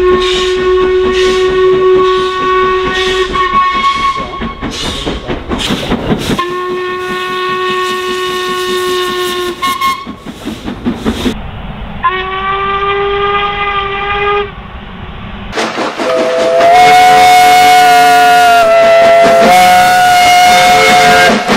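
Steam locomotive whistles from several engines in turn: a long whistle over steady exhaust beats from an LNER A4 Pacific, a second long whistle from LMS Coronation Pacific 6233, a short higher-pitched blast, then the loudest and longest blast, a deeper chord-like whistle from a small industrial saddle-tank engine.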